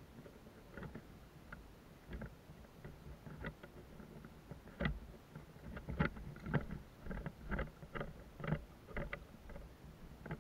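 Irregular knocks and thuds of an airsoft player's footsteps and rattling gear while moving quickly over grass, a few a second, growing louder about halfway through.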